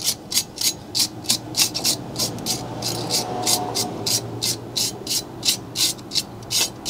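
Hand wire brush scrubbing rust and paint off a truck's metal wheel hub face between the lug studs, in fast back-and-forth scraping strokes at about four to five a second.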